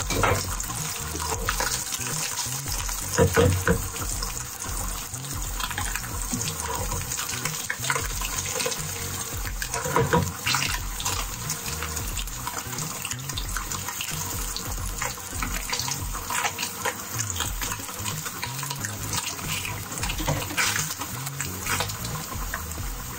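Slices of Spam frying in oil in a nonstick pan: a steady, rain-like sizzle with scattered crackles and pops, a few louder ones about three seconds and ten seconds in.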